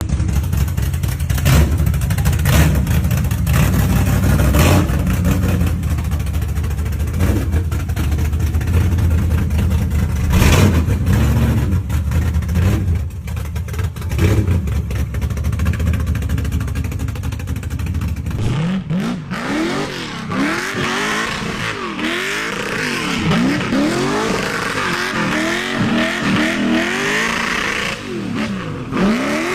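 Chevy V8 engine exhaust: a deep, heavy rumble for about eighteen seconds, then an abrupt change to a lighter, higher sound of repeated revs, the pitch rising and falling roughly once a second.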